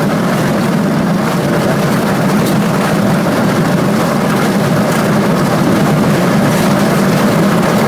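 Steady engine and wind noise inside the cabin of a 1958 Cessna 182 with a long propeller, running evenly and loud with a strong low hum.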